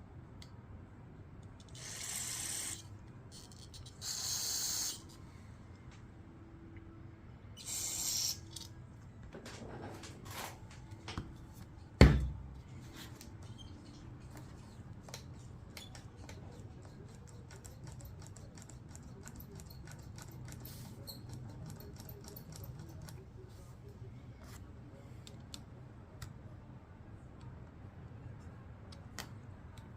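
Three short hissing blasts of compressed air blown through the small engine's carburetor passages to clear the jets, then a single loud knock about halfway through, followed by light scattered clicks of small parts being handled.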